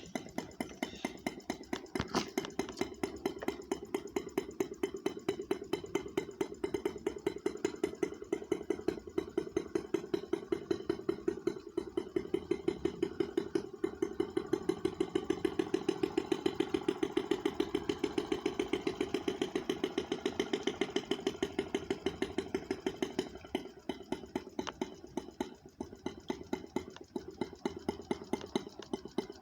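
Small gas engine of an RC boat running steadily with an even pulsing beat, rising a little in the middle and easing off near the end.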